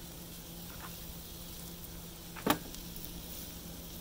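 Steak and peppers sizzling softly on a Blackstone flat-top griddle, with one sharp clack about two and a half seconds in.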